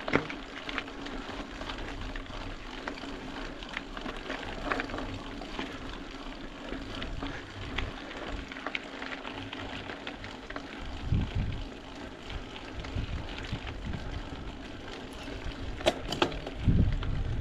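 Mountain bike being ridden on a trail: steady tyre and drivetrain noise with scattered clicks and rattles, and gusts of wind on the microphone about two-thirds of the way through and near the end.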